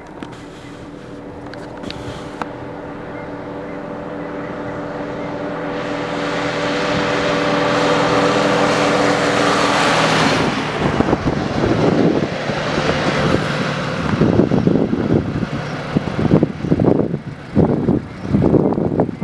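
A 1983 GAZ-53A fire truck's V8 petrol engine, with tyre noise, approaching at road speed. It grows steadily louder, passes close by about ten seconds in, then fades as the truck pulls away. Gusty buffeting on the microphone follows the pass.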